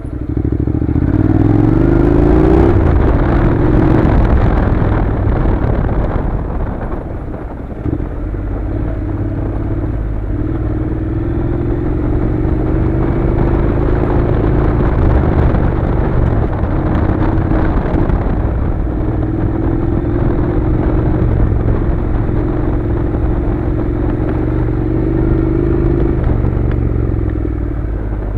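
Honda NC700's parallel-twin engine pulling a motorcycle along a loose gravel track. Its pitch rises with the throttle about a second in, drops back shortly after, then holds fairly steady with small rises and falls, under a constant rush of tyre and gravel noise.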